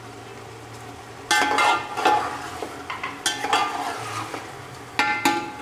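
Metal slotted spatula stirring and scraping chicken pieces frying in oil in an aluminium pot, the pot ringing under the scrapes. After a quieter first second the scraping starts and comes in bursts, with another burst near the end.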